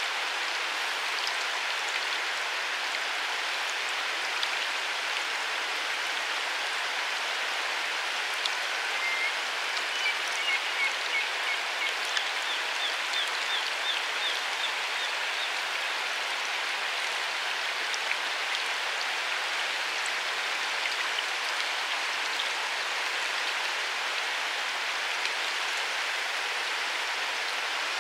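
Steady rushing hiss of water with no break. About ten seconds in, a small bird gives two short runs of quick, high notes.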